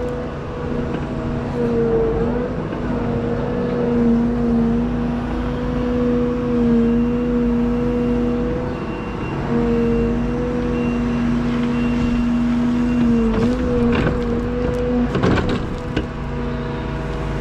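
Liebherr A913 Compact wheeled excavator's engine and hydraulics running steadily under load, a constant hum whose pitch dips briefly now and then as the grading beam is worked. A few short knocks and scrapes come about three-quarters of the way through.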